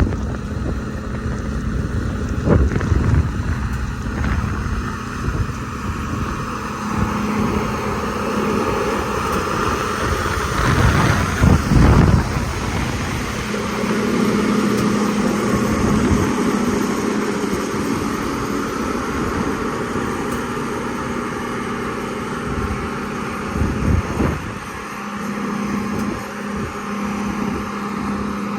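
Sakai road roller's diesel engine running steadily, with wind buffeting the microphone in the first half and a couple of brief louder surges, about halfway through and again near the end.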